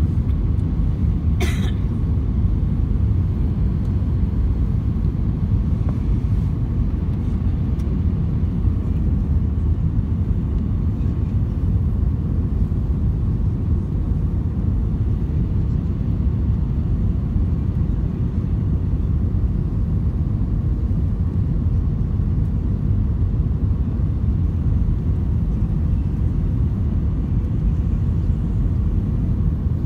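Steady low rumble of an airliner's jet engines and rushing air, heard from inside the passenger cabin in flight. A short sharp sound cuts through once, about a second and a half in.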